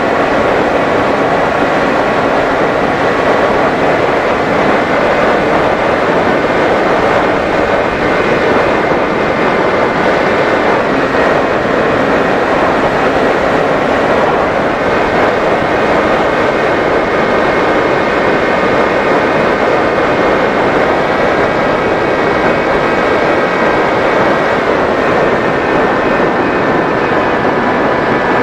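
Motor and propeller of a small radio-controlled FPV plane running steadily in flight, a whine whose pitch steps up or down a few times with throttle changes, over a steady rush of noise.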